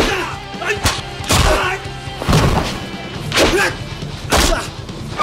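Punch and body-blow impact thuds of a staged fistfight, landing roughly once a second, with men grunting, over background music.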